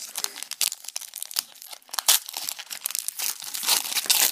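A Pokémon TCG Cosmic Eclipse booster pack's foil wrapper crinkled and torn open by hand: a dense, unbroken run of sharp crackles.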